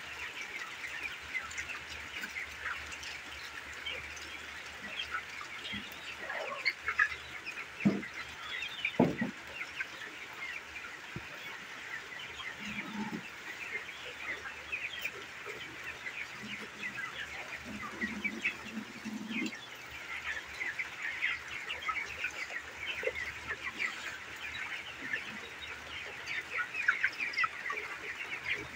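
A large flock of broiler chickens chirping and peeping continuously, many short high calls overlapping into a steady chorus.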